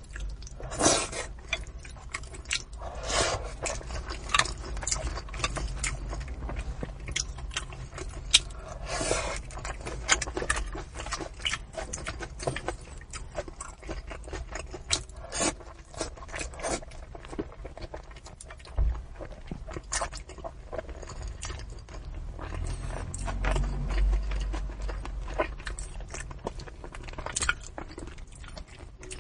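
Close-miked chewing and biting of spicy braised fish, with many small wet clicks and smacks and a few brief sucking bursts.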